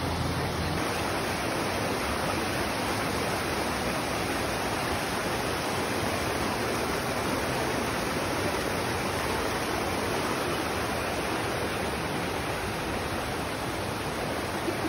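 Shallow rocky mountain river rushing over boulders in small rapids: a steady, even rush of water.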